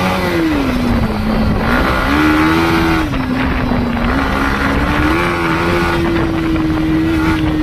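Yamaha MT-15 motorcycle's 155 cc single-cylinder engine running under way, its pitch rising and falling as the throttle is opened and eased, with wind noise on the microphone.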